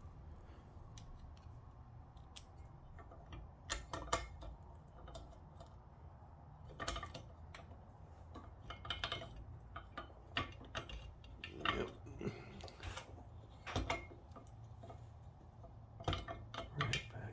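Metal parts of a Stanley Bailey No. 7 hand plane clicking and clinking together as it is reassembled: scattered light metallic taps every second or two, over a low steady hum.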